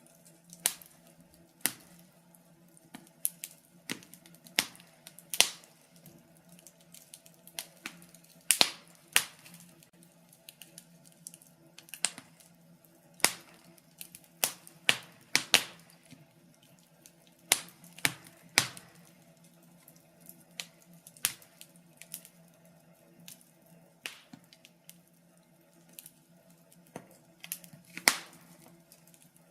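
Wood fire crackling in a fireplace: irregular sharp pops and snaps, one to a few every second or two, over a faint steady hum.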